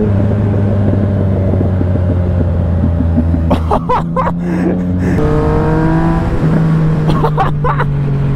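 Yamaha MT-09 SP's inline three-cylinder engine heard from the rider's seat, changing pitch as the bike slows and pulls away through the gears, with a rising whine under acceleration. A few short crackles from the exhaust come through, about three and a half and seven seconds in.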